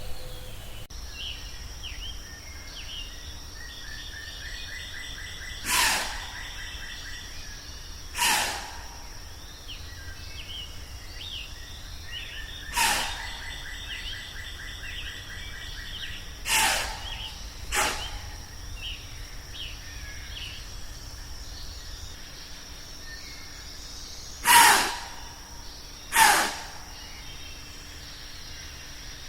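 Woodland ambience: a steady high insect drone and repeated small chirping calls. It is broken seven times by a short, sharp, loud sound that is unidentified.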